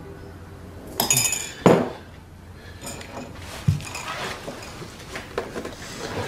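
A glass coffee jar and mugs being handled on a kitchen worktop: two sharp, ringing clinks about a second in, a dull knock later on, and small taps and clatters in between.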